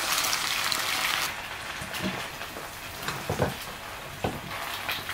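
Eggs sizzling in a frying pan, with a steady hiss. About a second in, the sizzle gives way to quieter scraping and a few light knocks as a knife spreads a topping on bread on a plate.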